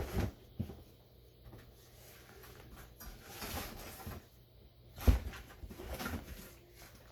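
Knocks and thuds of cardboard packaging being handled, with rustling in between; the sharpest knock comes about five seconds in.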